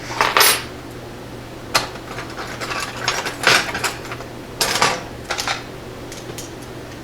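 Master No. 27 padlock being handled and taken apart: irregular metallic clicks and short rattles of its parts, in about six brief clusters.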